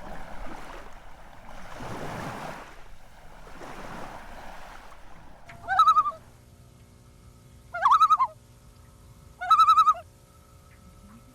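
Three swelling rushes of noise, then three loud wavering bird calls about two seconds apart, each lasting about half a second, over a steady low hum.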